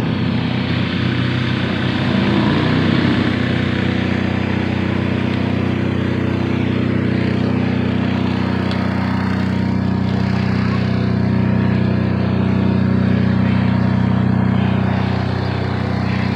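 A steady low engine hum that holds one pitch, with no change in speed.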